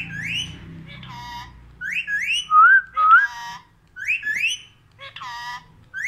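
Rose-ringed parakeet whistling: short rising whistles, mostly in quick pairs, repeated every second or so and mixed with a few brief harsher calls.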